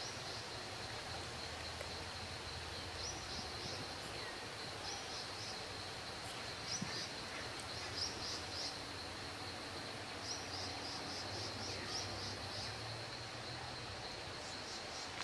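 Outdoor background hiss with short runs of rapid, high-pitched chirps that come back every second or two, with a faint low hum underneath.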